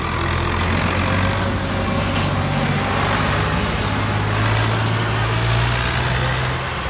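Farm tractor's diesel engine running steadily at low revs as it reverses with a trolley hitched, over crowd noise.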